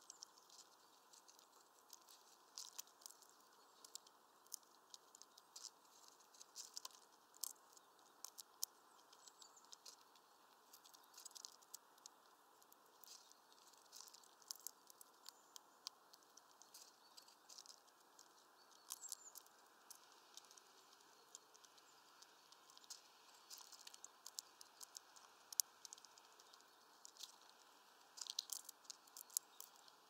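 Red squirrel cracking and chewing sunflower seeds: faint, irregular crunches and clicks of the husks splitting, often several in quick succession.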